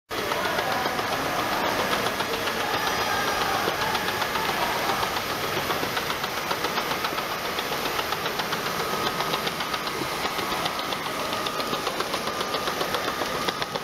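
Steam shrink-sleeve labelling tunnel running: a steady steam hiss over the fast, even rattle of its conveyor and machinery.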